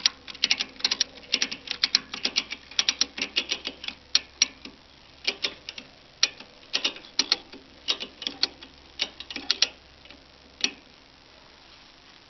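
Cargo ratchet strap being cranked tight: the ratchet's pawl clicks rapidly in quick runs of several clicks with each throw of the handle. The clicks thin out and stop after about ten seconds.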